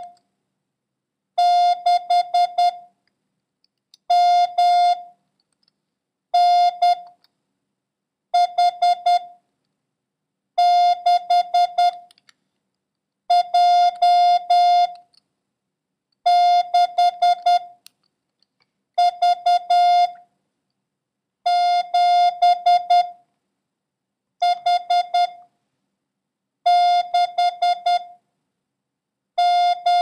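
Morse code practice tone: a steady mid-pitched beep keyed into dots and dashes, one character about every two and a half seconds with a pause after each. It sends a random copying run of letters, numerals and punctuation built around the number 6.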